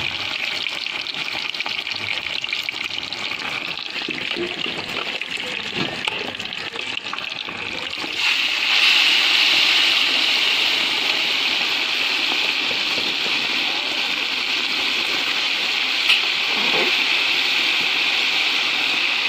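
Food deep-frying in hot oil in a large iron kadai: a steady sizzling hiss that grows louder about eight seconds in, as more food goes in and the oil froths up. A single sharp click comes about sixteen seconds in.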